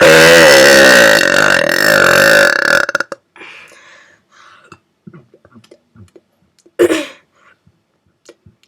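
A person burping on purpose: one long, loud burp lasting about three seconds. A brief loud sound follows near the end.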